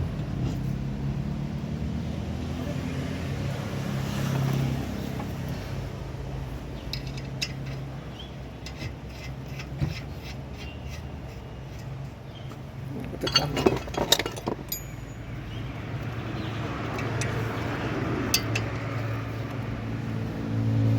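Metal parts and hand tools clinking and scraping during a disc brake pad change, with a loud cluster of clinks about two-thirds of the way in. A steady low hum runs underneath.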